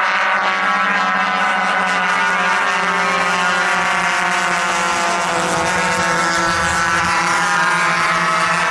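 Radio-controlled scale model B-17 bomber flying past overhead, its four engines and propellers giving a steady, loud drone.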